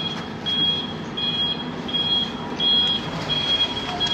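Electronic warning beeper sounding one high tone in short, even beeps, about one every 0.7 seconds, six in all.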